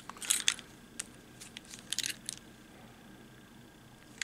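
A coin clicking and scraping in the slot of a plastic Honda PCX key fob as it is twisted to pry the case open: a few scattered sharp clicks over a couple of seconds. The 50 yen coin is too large for the slot and the cover does not pop.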